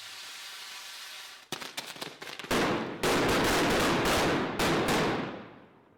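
Firecrackers in a Judas effigy going off: a steady hiss at first, then a quick run of sharp cracks about one and a half seconds in, building to a dense, loud crackle of rapid bangs that dies away near the end.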